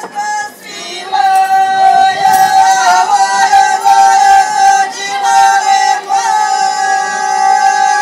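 Mixed men's and women's folk group singing ojkavica (Dalmatian ojkanje), loud. After a short break they launch a long held note about a second in and sustain it, the voices wavering and shaking on it in places.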